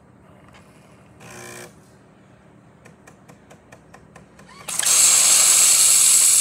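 Jura Z6 super-automatic espresso machine starting its milk function with no milk hose attached: a short buzz, then a run of quick ticks about six or seven a second, then, about five seconds in, steam bursts from the open milk spout with a loud, steady hiss.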